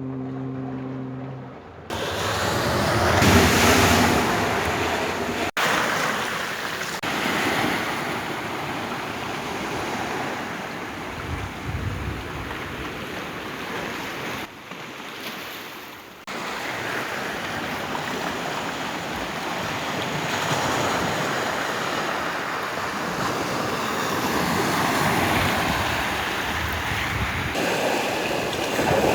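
Sea waves surging and washing in, with wind buffeting the microphone; the sound changes abruptly several times. In the first two seconds a low steady hum is heard before the surf comes in.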